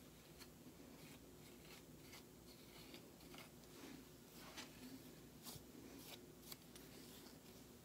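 Faint, irregular scratchy strokes of a wide-tooth comb drawn through wet hair.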